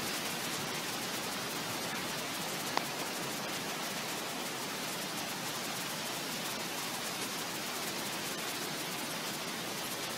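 Storm-swollen brook rushing past in a steady hiss of running water, with a single sharp click a little under three seconds in.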